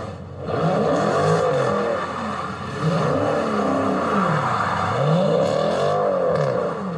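Dodge Scat Pack's 392 HEMI V8 engine revving up and falling back three times in a row.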